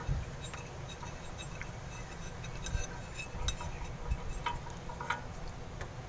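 Scattered light clicks and clinks, a handful over a few seconds, as a diesel-filled spin-on fuel filter is handled and screwed onto its mount at the fuel pump.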